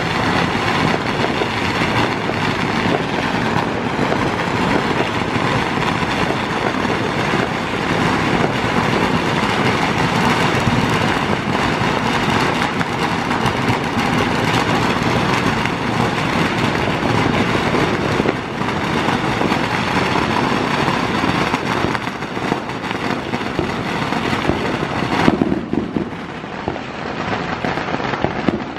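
A long string of firecrackers going off in a rapid, continuous crackle of pops. About 25 seconds in, this gives way to aerial fireworks bursting, with a fainter crackle.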